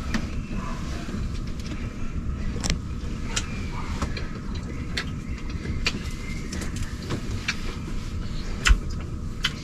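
A steady low machine rumble, with scattered small clicks and taps from people eating turkey wings with their hands; a louder knock near the end.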